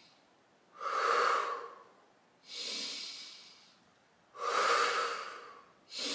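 A woman's slow, deep breaths, in and out. Four long, even breath sounds of about a second each are spaced by short pauses.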